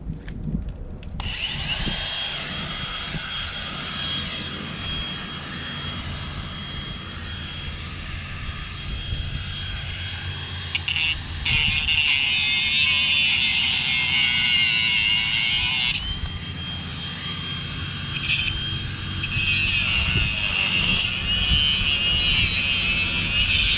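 A power tool running steadily with a high whine. It gets louder and harsher twice, for about five seconds from roughly 11 s in and again from about 19 s in, as it bites into the work.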